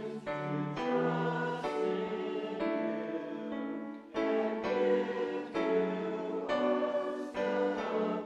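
Congregation singing a hymn with keyboard accompaniment, in slow held chords, with a short break between lines about four seconds in.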